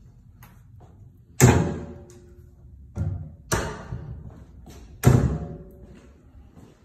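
Four heavy bangs, each ringing out and dying away over about half a second: a loud one about a second and a half in, a softer pair about half a second apart near the middle, and another loud one about five seconds in.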